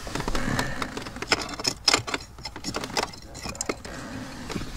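Scattered clicks, taps and light rattles of parts and tools being handled, over a low rustling.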